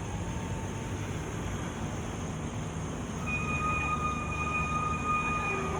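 Steady low rumble of road traffic. A steady high whine joins just past halfway and lasts about two and a half seconds.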